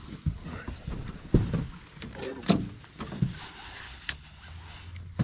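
Scattered knocks and bumps on a metal boat while a hooked bass is played to the side and scooped into a landing net, over a faint steady background.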